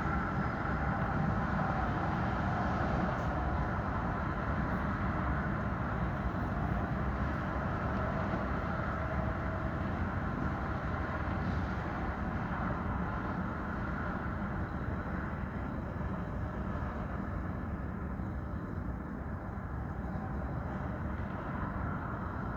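City street traffic ambience: a steady rumble of passing vehicles, easing off a little about halfway through.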